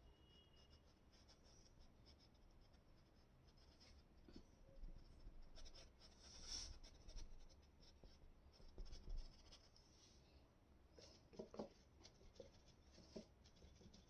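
Faint scratching of a small paintbrush working oil paint onto canvas in short, irregular strokes, with a few sharper strokes about eleven to thirteen seconds in.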